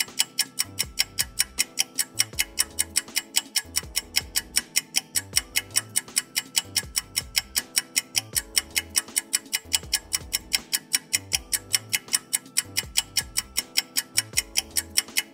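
Background music with a steady clock-like ticking beat, about four ticks a second, over held notes and a low bass line.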